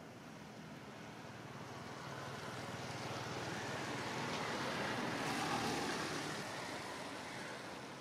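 A passing motor vehicle: its noise swells gradually to a peak about five seconds in, then fades away.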